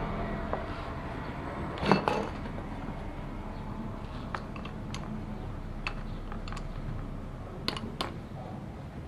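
Metal tools and parts clinking and tapping: a sharp double knock about two seconds in, then a scattering of light single clicks over a low steady hum.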